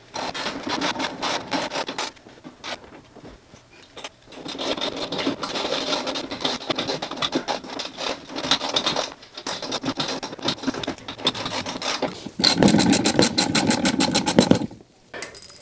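Hand ratchet clicking rapidly as bolts are run in and tightened, in several runs with short pauses between, the loudest run near the end.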